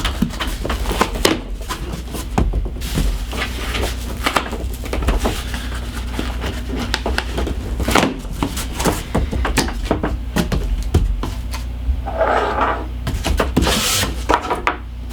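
A cardboard shipping box being worked open by hand: a run of scrapes, knocks and rustles of the packaging, over a steady low hum.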